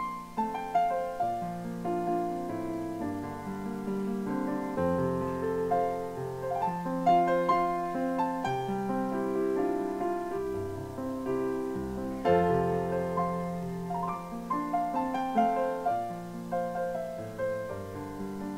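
Solo piano music played on a keyboard: a slow piece of chords and melody notes, each struck and left to ring.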